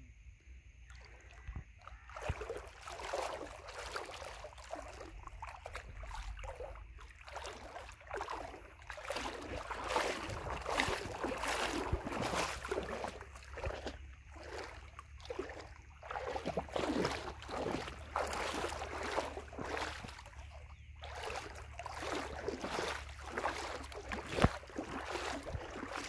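Shallow river water splashing and sloshing close to the microphone in irregular surges, over a low steady rumble.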